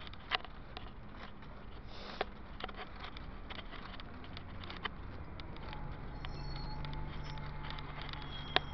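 Road traffic: vehicle engines running steadily, with one getting louder from about six seconds in, and scattered sharp clicks over it.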